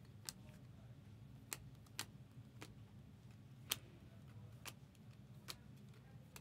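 Faint, scattered light clicks from trading cards being handled and set down, about seven of them at uneven intervals, over a low steady hum.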